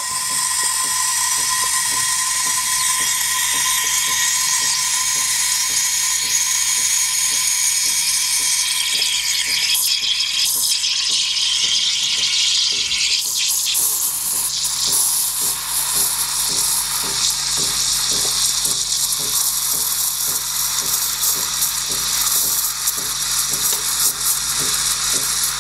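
Ferratti Ferro FCM 3605 espresso machine's steam wand steaming milk in a stainless steel pitcher: a loud, steady hiss of steam into the milk over a steady machine hum. The hiss changes character about halfway through.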